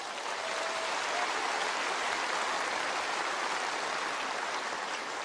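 Large stadium crowd applauding: a dense, steady clatter of clapping that swells in at the start and eases off a little near the end.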